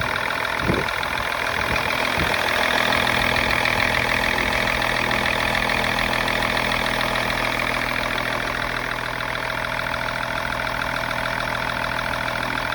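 BMW 530d's 3.0-litre straight-six diesel engine idling steadily, with a couple of short low thumps in the first two seconds.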